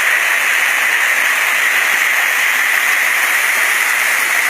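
Steady rush of falling water from a waterfall about 10 metres high, an even hiss-like roar that holds level throughout.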